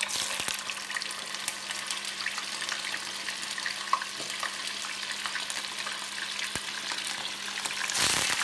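Milkfish (bangus) slices frying in hot vegetable oil in a pan: a steady sizzle full of fine crackles and pops, growing louder near the end.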